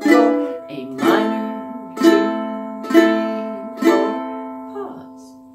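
Ukulele strummed with single down strums about once a second, each chord left to ring and fade: the last E7, then four A minor chords. A pause of about a second follows near the end: the two-beat rest before the pattern repeats.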